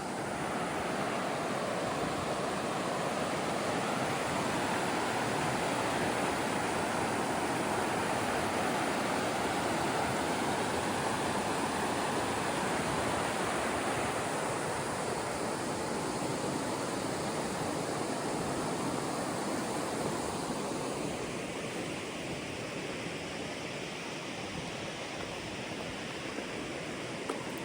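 River water rushing steadily over rapids, growing a little quieter after about twenty seconds.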